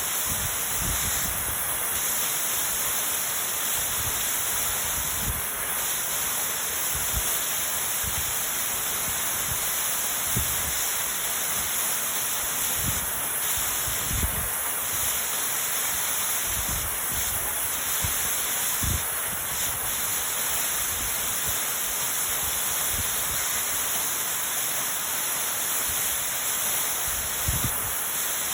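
Waterfall pouring steadily, a constant rushing hiss of falling water, broken by short, irregular low thumps.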